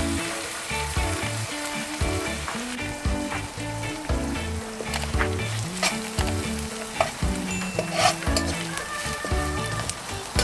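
Sliced shallots and herbs sizzling in a frying pan over a charcoal grill, in butter, sesame oil and a splash of ginger beer, with a metal utensil stirring and scraping against the pan.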